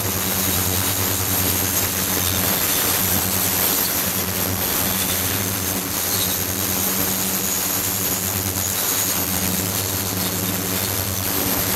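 Ultrasonic cleaning tank running with its liquid-circulation system: a steady hum with a hiss of cavitating liquid over it and faint high whines.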